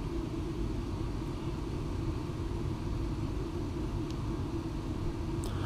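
Steady low rumble of room background noise, with one faint tick about four seconds in.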